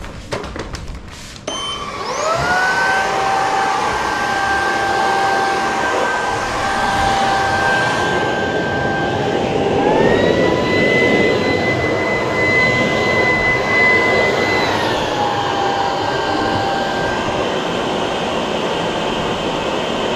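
A few sharp knocks, then a cordless vacuum cleaner switches on about a second and a half in, its motor whine rising quickly to a steady pitch. About ten seconds in the whine steps up higher and holds, then drops back a few seconds later: the intelligent mode raising suction power on a harder-to-clean spot.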